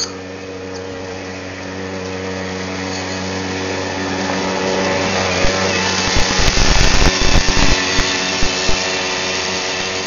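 A small motor whining steadily, growing gradually louder, with irregular low buffeting thumps in the second half.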